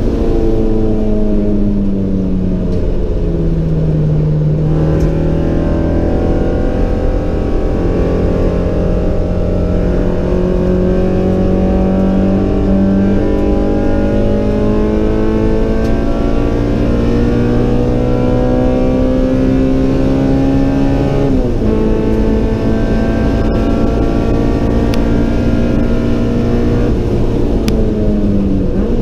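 Built 1.9-litre B18C four-cylinder engine of a Honda Civic EG6 with a custom header, heard from inside the stripped cabin under hard track driving. The revs fall at first, then climb in one long pull at full throttle, drop suddenly at an upshift about three quarters of the way through, climb again and fall away near the end as the car slows.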